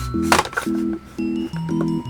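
Background music of short, evenly paced chords, about two a second, with a brief rustle about a third of a second in.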